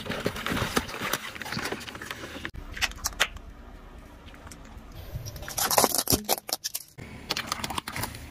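Objects crushed under a slowly rolling car tyre: plastic crackling and snapping with sharp clicks, and a loud burst a little before six seconds in. The sound changes abruptly twice as one crush gives way to another.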